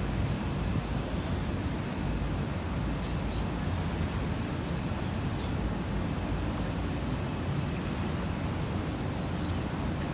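Steady harbourside ambience: a low rumble of water and ferry engines, with wind on the microphone and a few faint high chirps.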